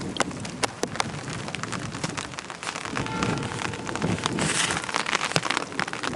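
Rain falling during a thunderstorm, with many sharp drop impacts ticking close by over a steady hiss. The rain grows louder toward the end.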